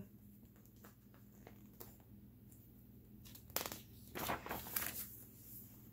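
Soft rustles and scrapes from a paper picture book being handled and held up, clustered in the second half over a quiet room.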